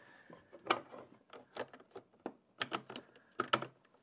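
Irregular small clicks and knocks of hard plastic parts being handled as a toilet's manual-flush cable and its fitting are worked into the plastic flange adapter, a handful of sharper clicks among them.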